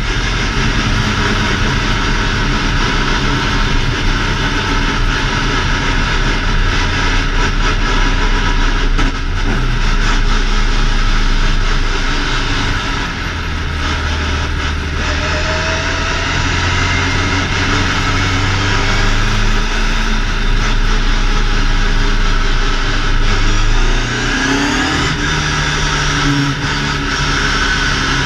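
BMW 2002 ti's four-cylinder engine running under way, heard from inside the cabin, its note dipping and picking up again a few times as the throttle lifts and reopens.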